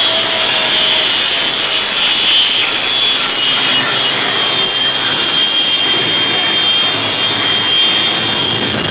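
Steady rushing of wind and a motorcycle engine, heard from the back of a moving motorbike.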